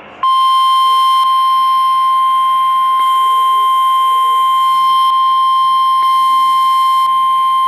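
NOAA Weather Radio 1050 Hz warning alarm tone: one long, loud, steady beep that starts a moment after the previous message cuts off. It announces a newly issued warning, here a tornado warning.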